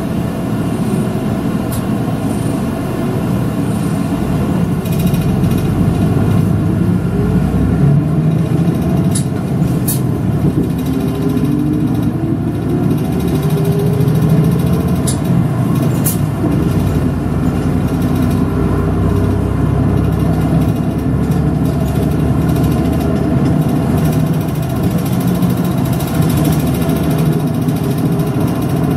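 City route bus engine running steadily, heard from inside the bus. Its pitch rises gradually for a few seconds around the middle, and a few short high clicks or hisses come in between.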